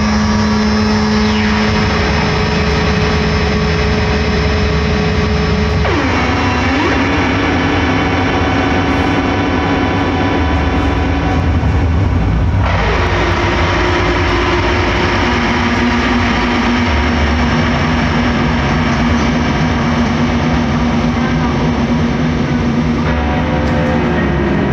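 Electric guitar run through a large pedalboard of effects, playing a loud, dense dark-ambient drone of layered sustained tones over a deep low rumble. The pitch of the drone sweeps steeply down about six seconds in and again around twelve seconds, then shifts again near the end.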